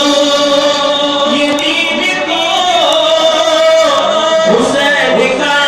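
Manqabat (Urdu devotional song) sung live: a man's voice holding long drawn-out notes, stepping up in pitch about two seconds in and wavering near the end.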